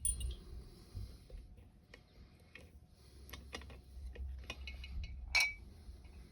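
Small metallic clicks and ticks from a Dom IX 5kg dimple lock and lock-picking tools being handled, with one sharper, ringing metallic clink about five seconds in.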